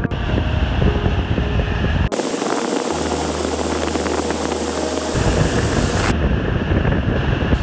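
Wind rumbling on the microphone over the noise of a motor yacht under way: engine hum and rushing water. The sound changes abruptly about two seconds in and again near the six-second mark, where the recording is cut together.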